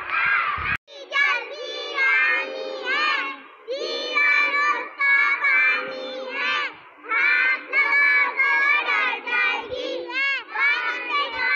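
A group of young children singing and shouting together in chorus, many voices overlapping in short chanted phrases.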